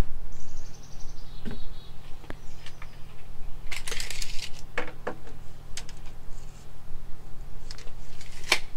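Pine boards being shifted and laid down on a wooden deck, with scrapes and sharp wooden knocks, and a steel tape measure pulled out along a board about four seconds in.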